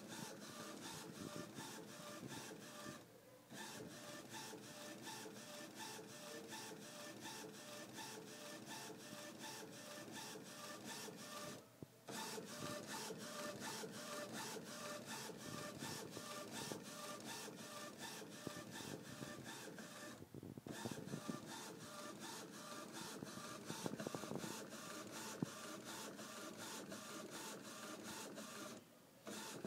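Epson Stylus S22 inkjet printer, converted for direct-to-garment printing, at work: a rapid, steady mechanical ticking and whirring. It breaks off in short pauses about every eight to nine seconds.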